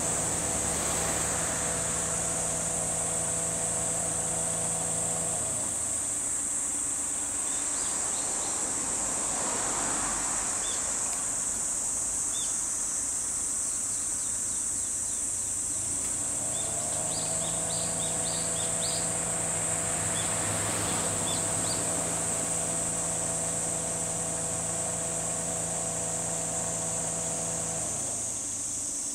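Steady high-pitched drone of cicadas in the trees. A low engine-like hum fades out about five seconds in, rises back in at about sixteen seconds and stops near the end. A few short high chirps are heard in between.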